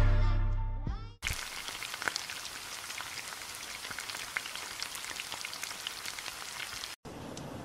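Music fades out in the first second, then a steady crackling hiss of a heap of steaming corn cobs, like sizzling. Near the end it cuts to a smoother, even hiss.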